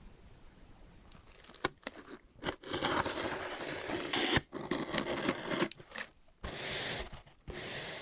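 Hobby knife slicing through packing tape along a cardboard box's seam: a long scratchy tearing and scraping sound with sharp clicks, starting about a second in, followed by two shorter scrapes of cardboard as the box is handled.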